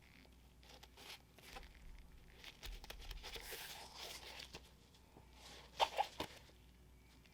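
Paper being handled during a shoe unboxing: soft, scattered crackling and rustling. Two short, louder knocks come close together about six seconds in.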